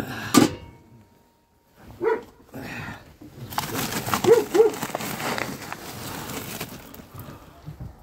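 A few short animal calls from the yard's dogs and hens, including a quick pair about halfway through, over a few seconds of rustling noise.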